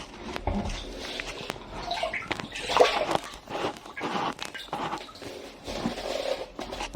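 Water sloshing and splashing in uneven bursts, with a few sharp clicks.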